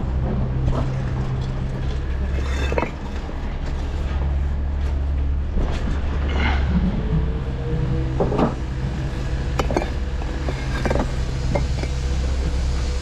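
A steady low engine hum, with scattered knocks and clicks on top.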